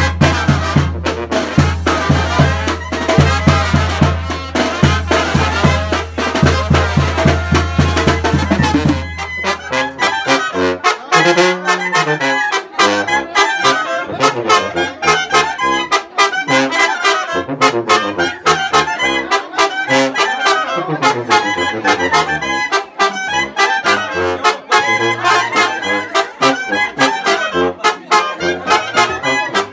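Brass band with trumpets, trombones, sousaphone and drums playing a dance tune to a steady beat. A heavy low rumble under the music drops away about nine seconds in, and the brass melody then stands out more clearly.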